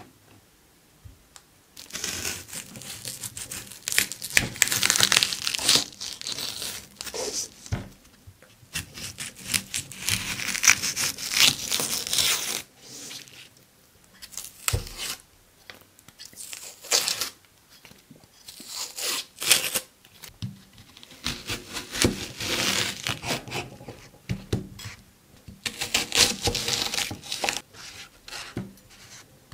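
Red onions being peeled and cut by hand, starting about two seconds in: dry onion skins crackling and tearing, and the knife crunching through the layers with sharp taps.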